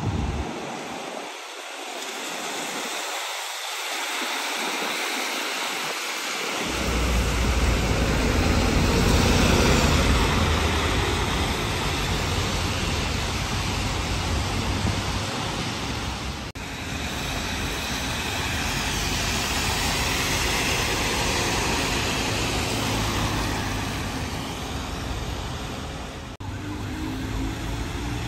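Buses and traffic passing on a rain-wet road: a steady hiss of tyres on wet tarmac. About a quarter of the way in, a bus engine's low rumble comes in and is loudest a little later.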